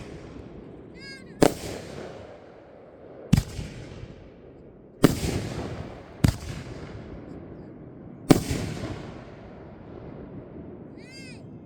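Fireworks going off: five sharp bangs spaced one to two seconds apart, each trailing off in a long echoing decay. The last bang comes a little past the middle, and the rest is the fading rumble.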